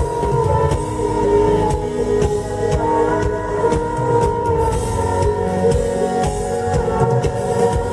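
Live band music: a drum kit playing over sustained held tones.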